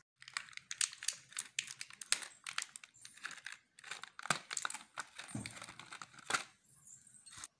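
Clear plastic blister packaging crinkling and crackling in irregular clicks as small plastic dollhouse furniture pieces are pried out of it by hand.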